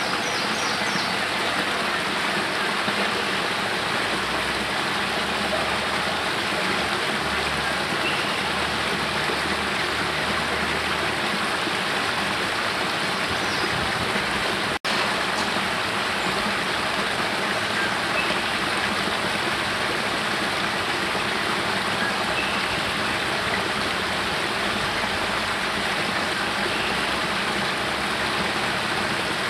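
Small spring-fed waterfall spilling from a cave mouth over rocks into a pool: a steady rush of falling water. The sound drops out for an instant about halfway through.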